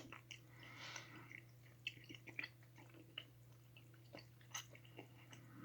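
Faint chewing of a dense gelatin gummy bear: scattered soft, wet mouth clicks over a low steady hum.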